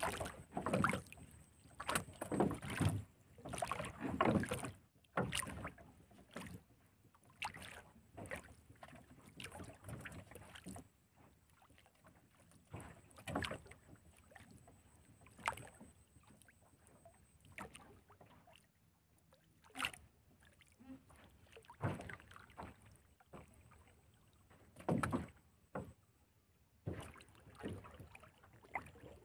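Irregular soft knocks, creaks and rustles from a small wooden boat as a fishing line is worked by hand over the side, some with a low thud, coming every second or so at first and more sparsely after about ten seconds.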